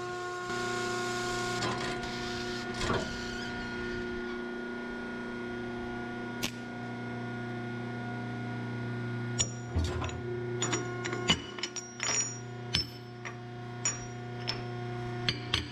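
Shop press pushing a new rubber bushing into a steel truck torque rod through a reducer cartridge. A steady electric hum and a brief hiss come near the start. From about nine seconds in there is a run of sharp metallic clinks and knocks as the steel torque rod and cartridge are handled on the steel press plate.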